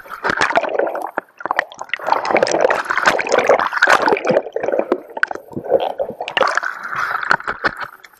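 Water churning, splashing and gurgling around a kayak-mounted camera that is half under the surface while a whitewater kayak capsizes in an Eskimo roll attempt. It is loud and irregular, with many sharp splashes and short lulls about a second in and about five seconds in.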